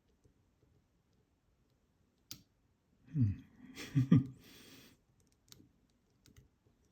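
Lock picking an ASSA 700 pin-tumbler lock: faint small clicks of the pick and tension tool on the pins, with one sharper click about two seconds in. About three to four seconds in comes a brief wordless murmur and breath from the picker, the loudest part.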